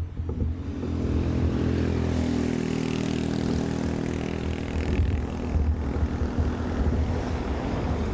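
Car driving on a road, heard from a camera on its roof: engine running with tyre and wind noise. The noise rises about a second in as the car gets moving.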